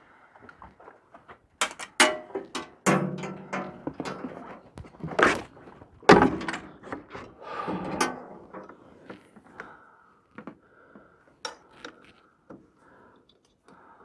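Handling knocks and clatter: a run of sharp thunks and rattling from about a second and a half to eight seconds in, loudest about two and six seconds in, then only a few faint ticks.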